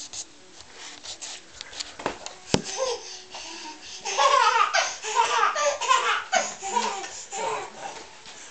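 Baby laughing: a run of high, bright giggles starting about halfway through and lasting some three seconds, after a single sharp knock a little before.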